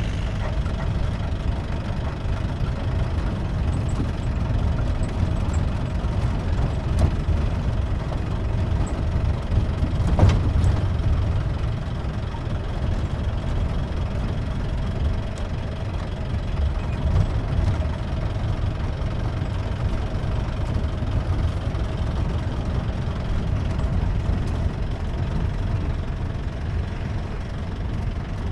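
Jeep engine running steadily while the jeep drives, heard from on board, with one sharp knock about ten seconds in.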